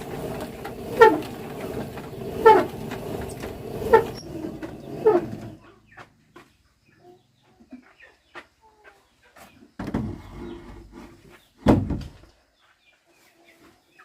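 A chicken calling: a short call falling in pitch, repeated about every second and a half, five times. Then quieter, with scattered small clicks, a brief rustle, and one loud thump near the end.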